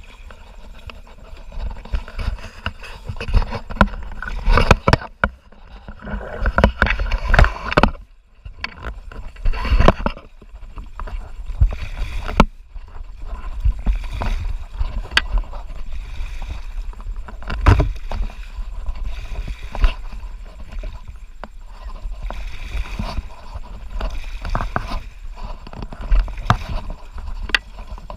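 Water rushing and splashing around a plastic sit-on-top kayak running down a swift, shallow river, with irregular knocks and thumps throughout.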